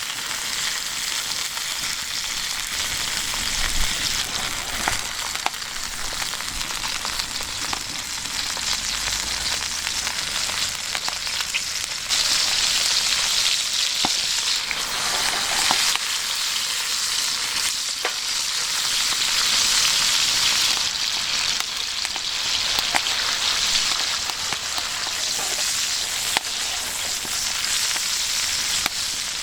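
Food sizzling in an iron frying pan over a wood campfire, a steady hiss with scattered sharp pops. The sizzle gets louder about twelve seconds in.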